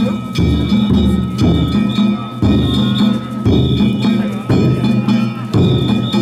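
Danjiri festival float percussion (narimono): a large taiko drum beating with hand-struck kane gongs ringing over it. The strokes come in a regular beat about once a second.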